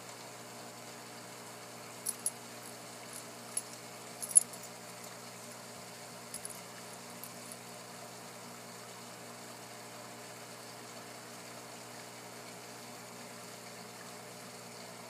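Steady hum of aquarium equipment, with a few small sharp clicks between about two and seven and a half seconds in, the loudest a little past four seconds.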